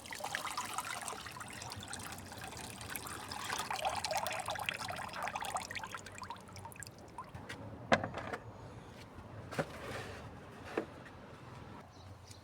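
Water pouring and trickling for several seconds, then easing off, with a few sharp knocks near the end.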